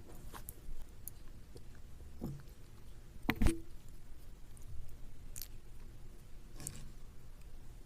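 Close-up chewing: a person eating, with scattered short clicks and crunches of the mouth and food, one much louder about three and a half seconds in.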